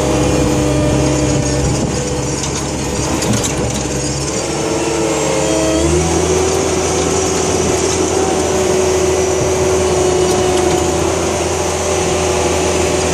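Cat 257B skid steer's turbocharged Caterpillar 3024C diesel engine running. Its pitch shifts about four to six seconds in, then holds steady at a higher speed.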